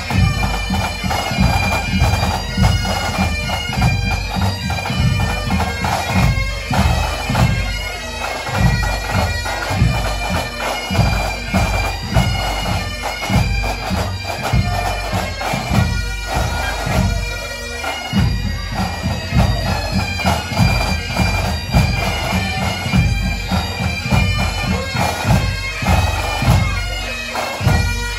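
Pipe band playing live: bagpipes sounding a melody over their steady drone, with drums beating a dense, driving rhythm underneath.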